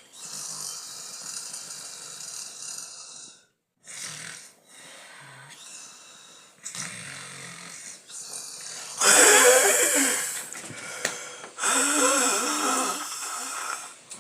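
Someone snoring: a run of breathy snores of different lengths, which turn much louder and more strained from about nine seconds in.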